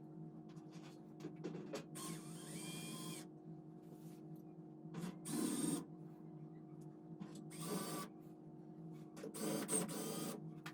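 Powered screwdriver running in four short whirring bursts, driving in the screws that hold the air cleaner's front cover, with a steady machine hum underneath.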